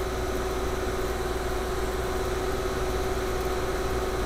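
Steady machine hum of a running fan-and-compressor unit: a constant low drone with a held mid tone over it, unchanging throughout.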